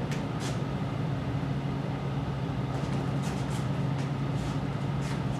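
Steady low hum and room noise in a quiet club room, with a few faint ticks.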